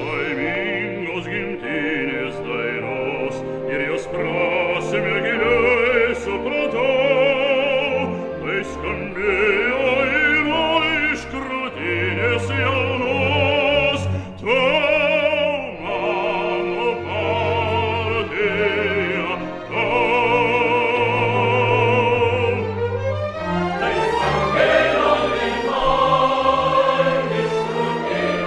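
Operatic singing with a wide vibrato over orchestral accompaniment, the music swelling fuller a little after two thirds of the way through.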